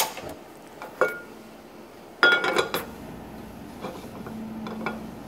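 Kitchen clatter of a frying pan on a gas range: a few sharp metallic knocks and clinks that ring briefly. The loudest cluster comes about two seconds in, followed by lighter taps.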